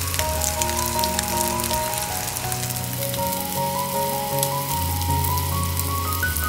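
Food sizzling and crackling in a hot frying pan, with light background music carrying a melody and bass.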